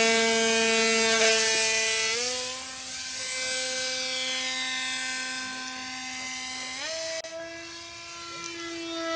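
Electric motor and propeller of a foam RC Extra 300 plane climbing out after a hand launch. It makes a steady whine that steps up in pitch about two seconds in and again near seven seconds, getting fainter as the plane climbs away.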